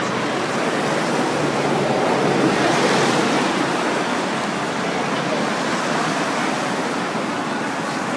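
Steady outdoor street noise: a rush of road traffic mixed with the murmur of a crowd, swelling for a moment about three seconds in.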